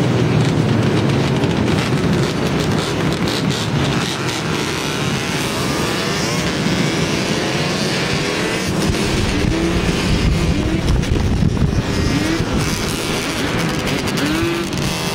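A pack of ATVs and dirt bikes running together in the street, a steady mix of engines. In the second half riders blip their throttles in a series of short revs.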